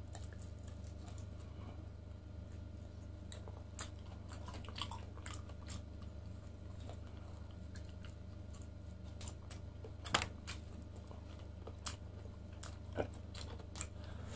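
Close-miked chewing of grilled lamb chop and rice eaten by hand: moist mouth sounds with scattered sharp smacks and clicks, the loudest about ten seconds in. A steady low hum runs underneath.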